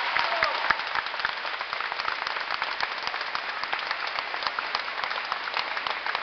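Spectators applauding, many separate hand claps, easing off a little over the first couple of seconds and then holding steady.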